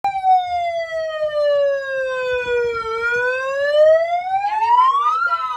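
An electronic siren wailing slowly: its pitch sinks for about three seconds, climbs higher, and starts to fall again near the end.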